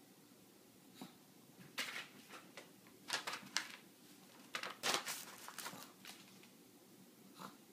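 A paper envelope rustling and scraping on the floor in a series of short bursts as a Shih Tzu pounces on it and paws at it, the loudest bursts about three and five seconds in.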